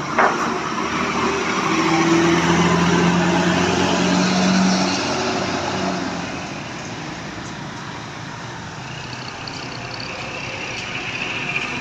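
A large bus driving past close by: a sharp knock right at the start, then engine and road noise that swell for a few seconds and fade away as it goes.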